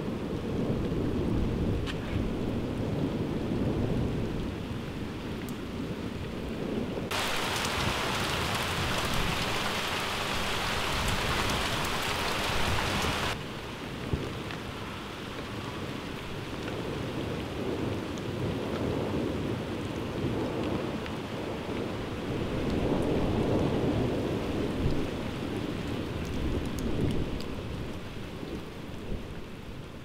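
Heavy rain falling steadily with thunder rolling and rumbling underneath, swelling again in the second half. About seven seconds in, a louder, brighter rain hiss starts abruptly and cuts off suddenly about six seconds later.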